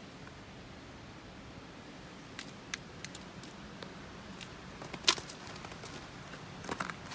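Light, scattered footsteps and scuffs over a steady outdoor hiss, with one sharper click about five seconds in.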